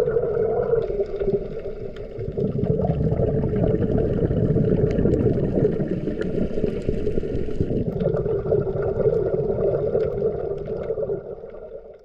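Muffled underwater noise picked up through a camera housing: a steady rushing with a hum in it, fading out near the end.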